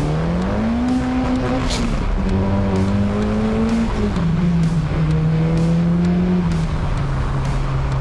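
Nissan SR20DET turbocharged 2.0-litre four-cylinder in a 1993 180SX pulling under power. The engine note climbs in the first second, then drops in steps at upshifts about two, four and seven seconds in, holding steady between shifts.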